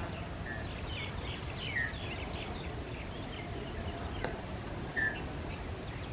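Short bird chirps and calls over a steady background rumble: a quick cluster of chirps in the first few seconds, single call notes near the start and about five seconds in, and one sharp click a little past the middle.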